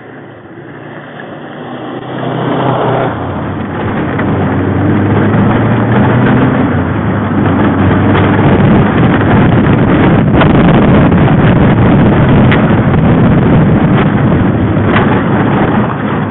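Subaru WRX STI's turbocharged flat-four engine driven hard, heard from inside the cabin on a dirt track. It builds over the first few seconds into a dense, loud rush of engine and tyre noise with scattered sharp knocks.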